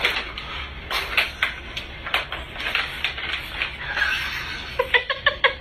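Hard plastic of a tiered ball-track cat toy clattering in irregular knocks and clicks as a cat's head gets caught in it, with a quick run of clicks near the end.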